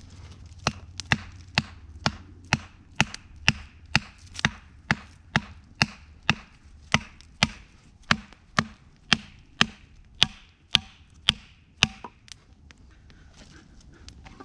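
A steady series of sharp chopping strikes, about two a second, that stops about twelve seconds in.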